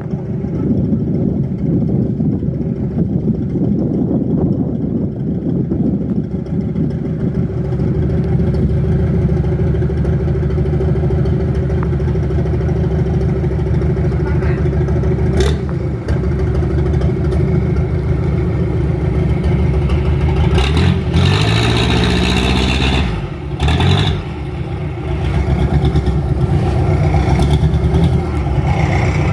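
Mitsubishi 4D31 four-cylinder diesel inboard of a wooden cargo boat running steadily under way. Between about 21 and 24 seconds in, the engine speed drops and then picks up again. A single sharp knock sounds about 15 seconds in.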